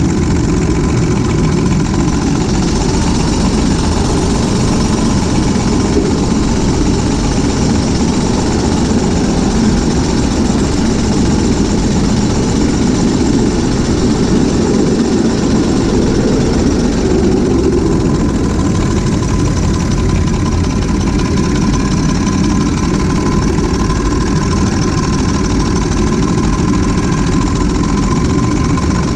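Large-scale ride-on locomotive running along the track, heard from on board: a loud, steady rumble of running gear and wheels on rails with a faint steady whine. The rumble swells briefly about halfway through, while passing through a corrugated culvert pipe.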